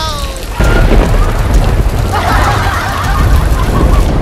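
A thunderclap breaks about half a second in and rumbles on over falling rain. In the middle, people cry out in alarm.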